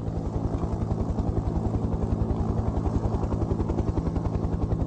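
Helicopter running steadily: a rapid, even beat of the rotor blades over a constant engine hum.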